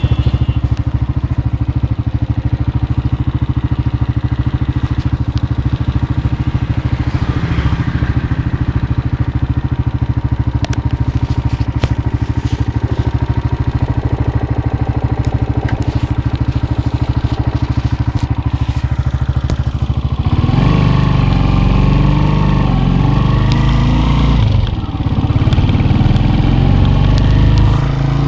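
An engine running steadily close by with a fast, even pulse, getting louder about twenty seconds in, with its pitch shifting.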